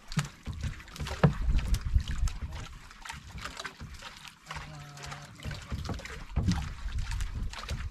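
Sounds on a small fishing boat at sea: an uneven low rumble with water noise, and scattered sharp knocks and clicks.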